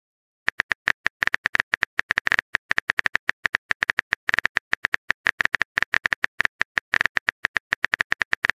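Phone keyboard key-tap sound effect: a fast, uneven stream of short clicks as a text message is typed out, starting about half a second in.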